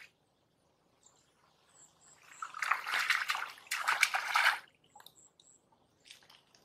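Hands groping and splashing in shallow muddy water while grabbing for a catfish, in two bouts of sloshing about two and four seconds in. Faint short high chirps come and go in the background.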